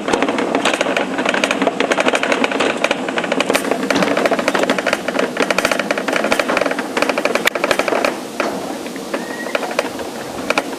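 Summer toboggan sled running down a steel trough, a continuous rattle full of rapid clicks. It gets somewhat quieter about eight seconds in.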